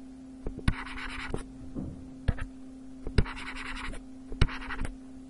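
Stylus scratching across a pen tablet in two short writing strokes, with a few sharp taps of the pen tip, over a steady low hum.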